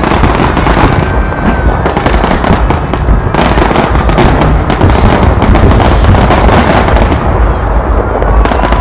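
Aerial firework shells bursting in a rapid, continuous barrage of bangs and crackles.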